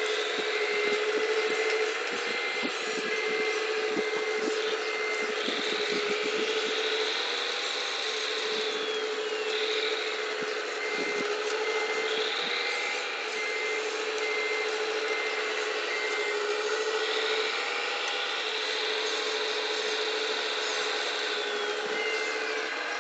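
Hydraulic pump of a Wedico CAT 345D LME 1:14.5 RC excavator whining steadily in stretches of several seconds while the arm and bucket work. The bucket scrapes and knocks against gravelly soil. Two runs of evenly spaced electronic beeps, like a reversing alarm, sound over it.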